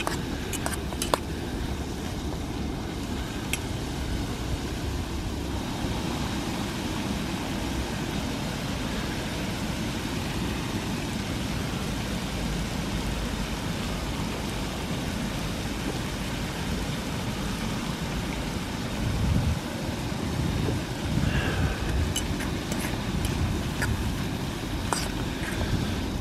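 Steady low rumble of wind on the microphone, with a metal fork clicking and scraping in a metal camping pan as beans and mushrooms are stirred, just at the start and again over the last few seconds.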